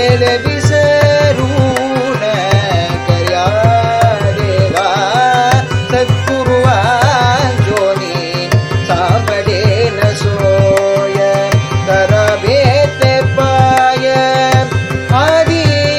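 Devotional bhajan music: a harmonium playing held notes and melody over a steady mridangam rhythm, with gliding melodic phrases.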